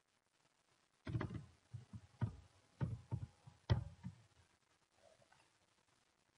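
Computer keyboard keystrokes and mouse clicks: about seven separate short taps between one and four seconds in, as a year is typed and then selected.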